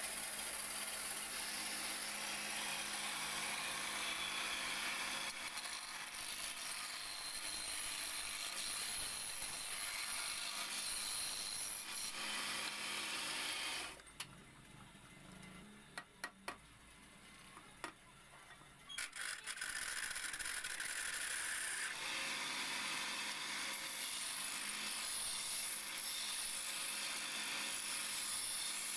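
Wood lathe running while a hand-held turning tool cuts a wooden spindle blank, taking it from square to round: a steady rushing of the tool cutting wood. Around the middle the cutting noise drops away for about five seconds, with a few sharp clicks, then resumes.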